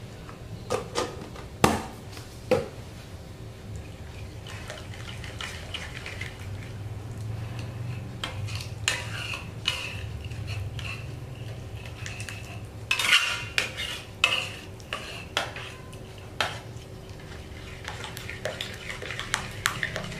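Metal spatula stirring a thick sauce in a stainless steel pan, scraping and clinking against the pan, with a few sharper knocks.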